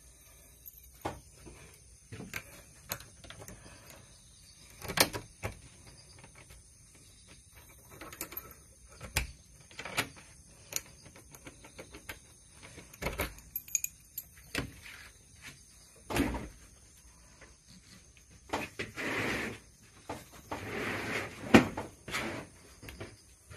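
A door being opened and someone stepping out onto a wooden deck: scattered knocks, clicks and footfalls, with a couple of longer scuffing noises near the end.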